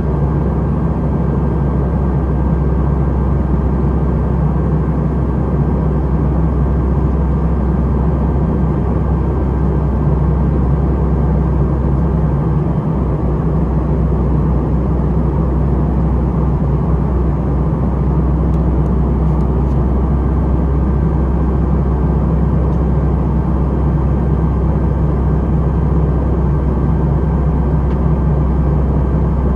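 Steady cabin noise of a Boeing 737-700 airliner in flight, heard from a window seat beside its CFM56-7B engine: a low, even engine drone under a constant rush of air, with a faint steady high tone.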